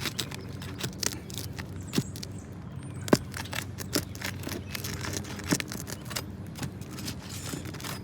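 Roof snake, a metal shingle repair tool, working under asphalt shingles to pull a roofing nail: irregular scraping and sharp clicks of metal against shingle and nail, the sharpest about three seconds in.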